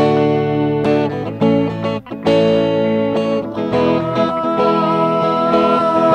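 Music: a guitar-led song with plucked and strummed guitar. A long held high note comes in about four seconds in.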